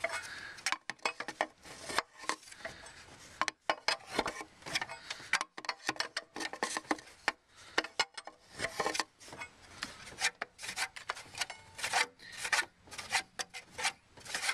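Irregular scraping, rubbing and clicking as a Land Rover TDV6 diesel's viscous cooling fan is turned by hand against a spanner to unscrew its coupling nut, with metal and plastic rubbing near the fan shroud.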